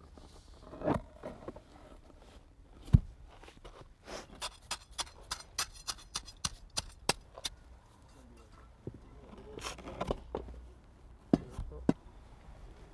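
Bluestone patio slabs being tapped and nudged into place on a stone-dust bed: one sharp knock about three seconds in, then a quick run of hard clicks at about four a second, and a few more knocks near the end, with low murmured voices.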